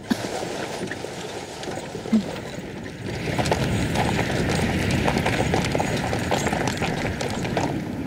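A horse-drawn carriage on the move: hooves clopping over a steady rumble, louder from about three seconds in.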